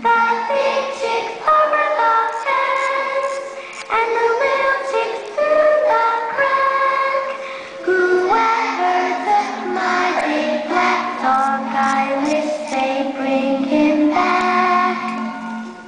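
A young girl singing a simple children's song into a microphone over musical accompaniment, holding each note briefly as the tune steps up and down.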